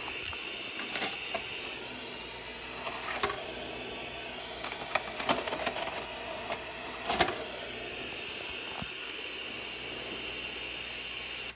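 Static hiss from a Daewoo CRT TV/VCR combo whose screen shows snow, a steady hiss broken by several sharp clicks and knocks from about three to seven seconds in. The hiss cuts off suddenly at the end.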